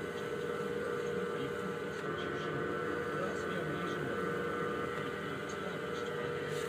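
Electric potter's wheel running steadily, a constant motor hum with a whine, as wet clay is thrown on it.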